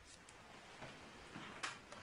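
Faint rustling of cloth being handled, with one sharp click about one and a half seconds in.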